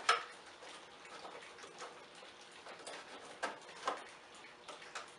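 A few sharp clicks and taps of a part being handled and fitted back on, one just after the start and two about three and a half to four seconds in.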